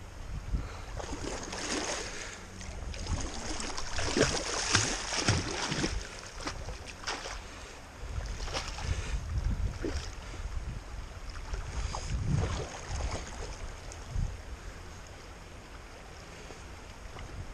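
A hooked fish thrashing and splashing at the surface of a shallow river, in repeated bursts that thin out near the end, over the rush of the current and wind buffeting the microphone.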